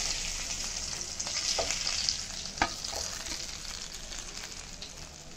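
Pomfret frying in hot oil in a nonstick pan: a steady sizzle that fades over a few seconds, with a few light knocks of a spatula against the pan.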